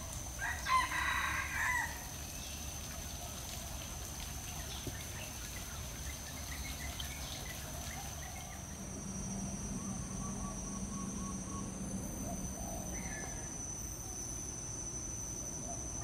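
A rooster crowing once, about half a second in, a call of about a second and a half that is the loudest thing here, followed by faint scattered bird chirps.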